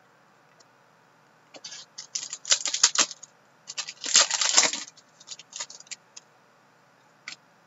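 Foil wrapper of a hockey card pack crinkling and tearing as it is ripped open by hand, in two main crackling bursts about two and four seconds in, followed by a few lighter clicks as the cards are handled.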